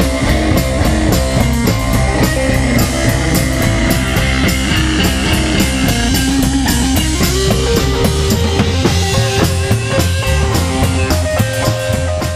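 Rockabilly band playing live: slapped upright bass, electric guitar and a drum kit keeping a steady, even beat.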